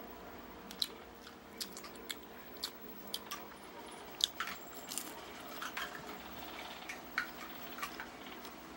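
Close-miked chewing of crispy fried boneless danggit (dried rabbitfish) with rice: irregular sharp crunches and wet mouth clicks.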